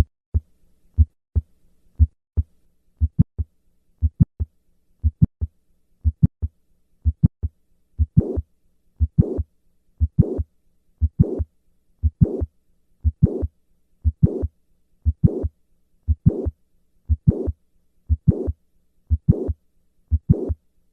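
Heart sounds of mitral valve prolapse, beating steadily at about one beat a second, with a mid-systolic click and a late systolic murmur. The beats are short and crisp at first, and the murmur joins each beat from about eight seconds in.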